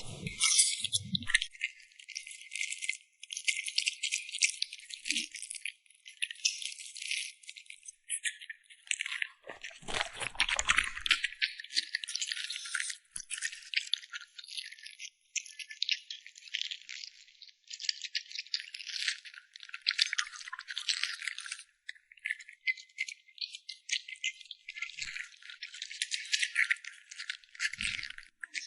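A French Bulldog crunching and nibbling its food: a dense run of rapid, crackly little clicks, thin, with the low end mostly missing. About ten seconds in, a fuller crunch reaches lower.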